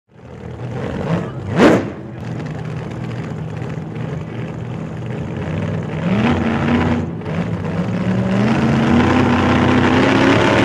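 Boat engine running steadily under a hiss of wind and water, its pitch rising about six seconds in and climbing again near the end as it speeds up. A brief loud whoosh comes about a second and a half in.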